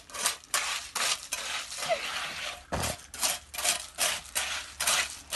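Wet gravelly concrete being spread by hand with a tool: quick rough scrapes, about three a second, with a short pause partway through and a dull thump near the middle.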